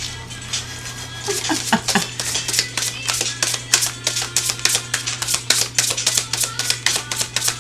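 A deck of oracle cards being shuffled by hand: a fast run of sharp card clicks, about four or five a second, starting about a second in, over background music.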